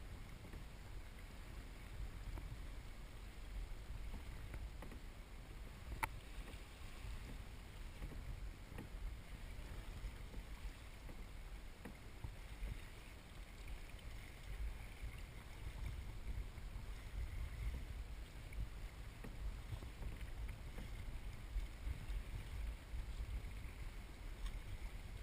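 Strong gusty wind buffeting the microphone as a low, uneven rumble, with one sharp click about six seconds in.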